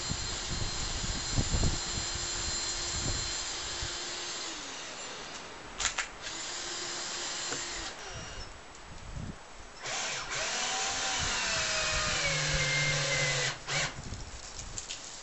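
Power drill running in three spells, the motor winding down at the end of each; in the longest, near the end, its pitch sags under load.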